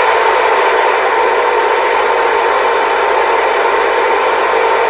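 CB radio receiver hissing with loud, steady static, cutting in suddenly at the start, with faint steady tones inside the hiss. It is the sound of an open channel or a keyed-up carrier carrying no voice.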